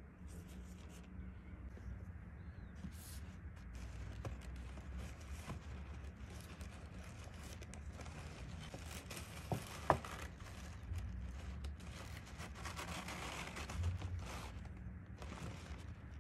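Hands handling paper or packaging: rustling, crinkling and scraping with scattered light taps and one sharp click about ten seconds in, over a low steady hum.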